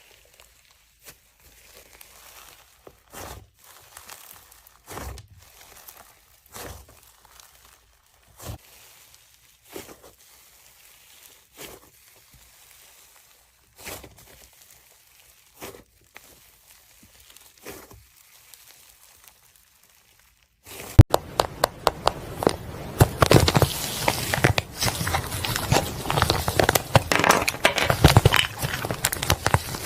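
Hands playing with slime: soft separate squishes every second or two, then about two-thirds of the way through a sudden switch to dense, loud crackling and crinkling.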